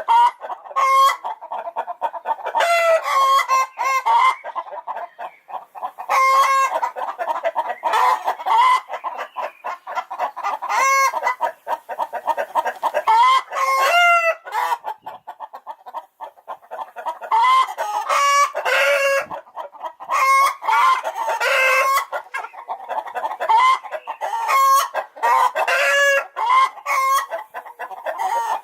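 Chickens clucking and cackling, short pitched calls repeating in quick clusters with brief pauses between them.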